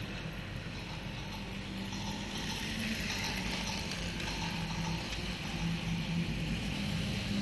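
Battery-powered toy train running on plastic track: a small electric motor humming, with rattling clicks from the wheels and wagons on the rails, loudest about two to four seconds in as it passes close by.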